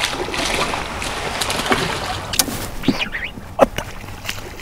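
Water splashing and sloshing, with a few sharp clicks.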